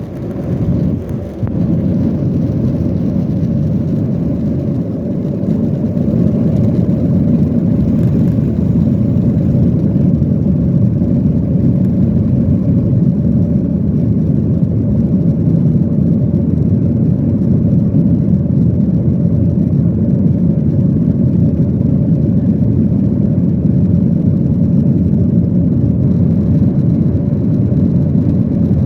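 Cabin noise of a Boeing 737-800 heard from a passenger seat: the steady low rumble of its CFM56 turbofan engines and the airflow, swelling over the first several seconds and then holding steady.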